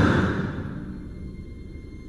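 The loud roar of a snowstorm cuts off abruptly and its tail fades away over about a second. What remains is a quiet, eerie film score of faint held tones.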